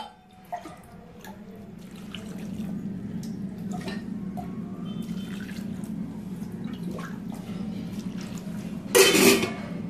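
Water running steadily as it is poured from a steel tumbler into a steel bowl of chopped vegetables, with a brief louder burst near the end.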